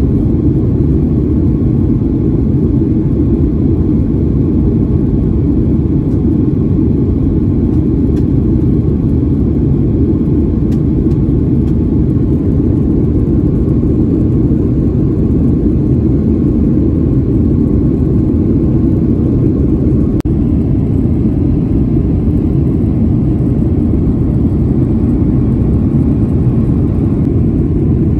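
Steady low rumble inside the cabin of a Boeing 737-900 climbing after takeoff: the CFM56 turbofan engines and the rush of air over the fuselage, even throughout.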